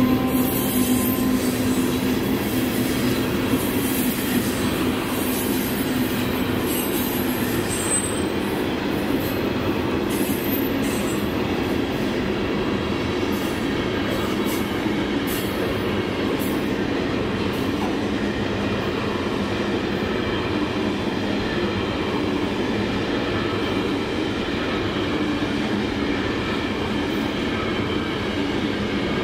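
A freight train of coal hopper cars rolling past, a steady rumble of steel wheels on rail. The hum of the GE E60C-2 electric locomotive fades out in the first couple of seconds, and faint high squeaks and ticks from the wheels come and go through the first half.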